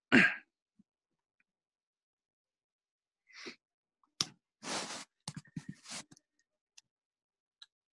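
A person's breath, a sniff or sigh, and a few short clicks, separated by stretches of dead silence.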